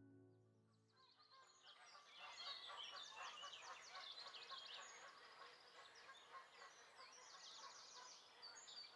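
Several songbirds singing together, a quiet chorus of quick chirps and falling trills that fades in about a second in, just after a music track ends.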